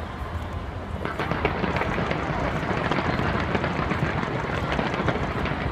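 Fireworks crackling and popping continuously, many small reports in quick succession, over the hubbub of a crowd.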